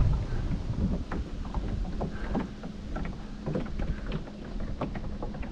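A small john boat under way on a creek: water splashing and lapping in short irregular ticks against the hull over a faint steady hum from its battery-powered motor. Low wind rumble on the unshielded microphone underneath.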